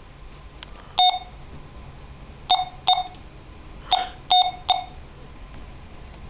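Short, identical electronic beeps from a switched-off battery-powered gadget: one beep, then a pair, then three in quick succession. The gadget beeps and shows a flat-battery warning even though it is turned off, a fault the owner finds abnormal.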